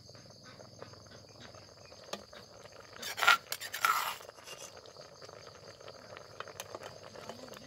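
A metal ladle scraping against an aluminium cooking pot, two loud scrapes about three to four seconds in, over a steady high chirring of insects.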